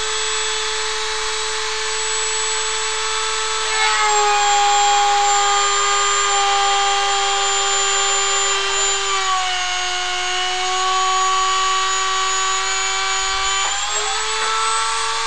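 Small CNC milling machine's high-speed spindle, fitted with a 0.8 mm cutter, running with a steady high whine. Its pitch drops about 4 seconds in and again near 10 seconds, then rises back near the end: the spindle slowing under the load of a cut that is a bit heavy for so small a tool.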